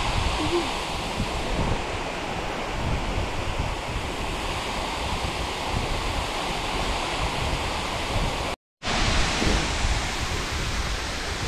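Steady rush of a tall waterfall pouring into its plunge pool, with wind buffeting the microphone in low gusts. The sound cuts out briefly about eight and a half seconds in, then the same rush returns.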